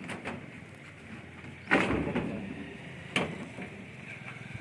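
Knocks and clatter as the mill's plastic chute pipe and metal parts are handled by hand: a loud thud about two seconds in, and a sharp knock about a second later.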